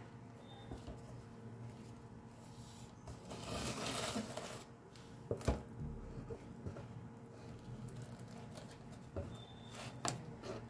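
Rustling of cloth and cardboard in a rabbit's nest box, with a few sharp knocks, the loudest about five seconds in, over a steady low hum.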